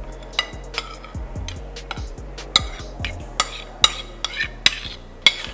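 A metal spoon clinking and scraping against a ceramic plate as chopped vegetables are tipped into a bowl of batter: about eight sharp clinks, over background music with a steady bass line.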